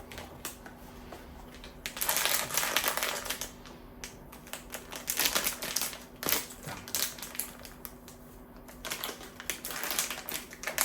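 Blind-box packaging being handled and opened by hand: several short spells of crackling, rustling and clicking, with pauses between them.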